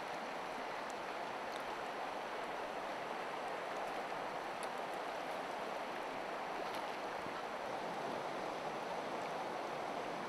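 Steady rush of a shallow, stony river flowing over rocks.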